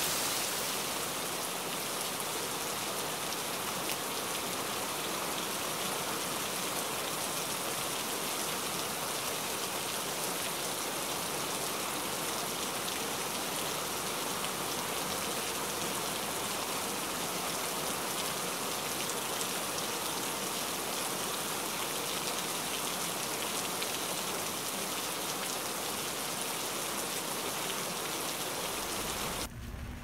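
Steady rain falling. Just before the end it changes to a duller, deeper rain sound.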